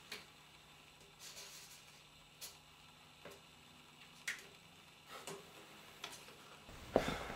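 Faint handling noises from a small container turned over in the hands: scattered light clicks and taps about once a second, then a louder rustle near the end.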